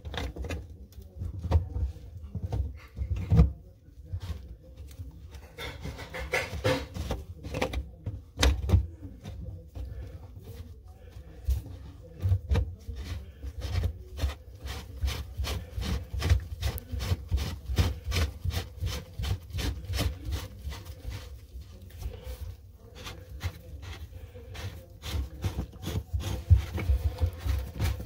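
Gloved hands rubbing and gripping a plastic sink drain trap: a rapid, irregular run of scrapes and small knocks.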